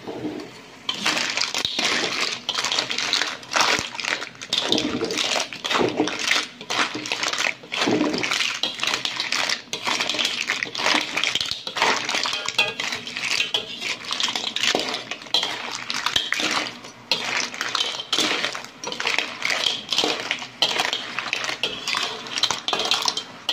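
Slotted metal spatula scraping and clattering around a metal wok as clams in their shells are stir-fried in a thick sauce, the shells rattling against the pan and each other. The stirring starts about a second in and keeps going without a break.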